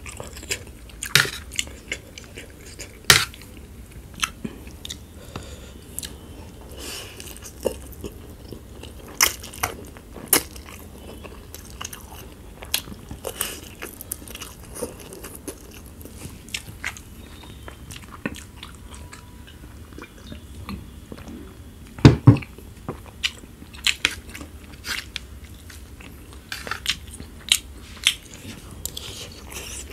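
Close-miked eating of spicy instant noodles: chewing and slurping with many short, sharp crunchy bites, the loudest pair of crunches about 22 seconds in.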